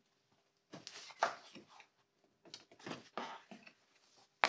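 Access cover on the back of a BMW E60 xenon headlight being worked open by hand: several short scraping rubs, then a sharp click just before the end.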